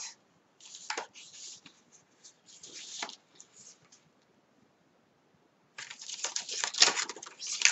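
Paper and card rustling as die-cut paper tags are sorted through by hand: soft rustles and a couple of small clicks at first, a short pause, then a denser, louder run of rustling and clicks near the end.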